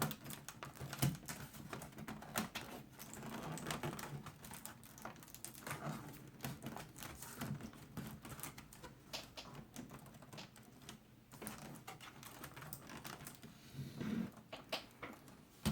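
Irregular light plastic clicks and taps as the touchpad cover of a Lenovo T400 laptop is pried loose from the case by hand.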